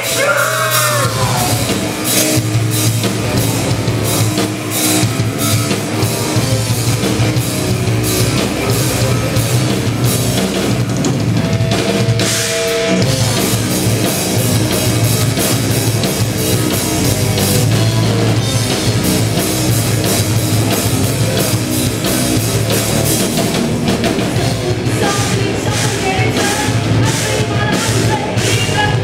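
Heavy metal band playing live and loud: distorted electric guitars, bass and drum kit, with a singer's voice coming in over it near the end.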